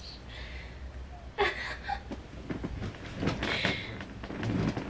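A dog squirming on its back on a bed, rustling the blankets and pillows in a few short bursts, about a second and a half and three and a half seconds in.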